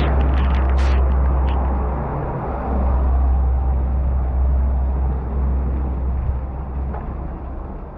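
Heavy downpour of rain hissing steadily, under a deep rumble, with a few sharp clicks in the first second or so.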